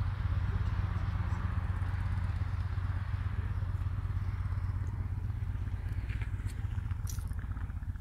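Motorcycle engine idling with a steady low note, with a few light clicks near the end.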